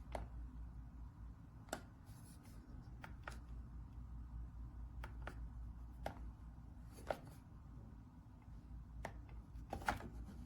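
Scattered light clicks and taps of objects being handled, about a dozen of them at uneven intervals, over a low steady hum.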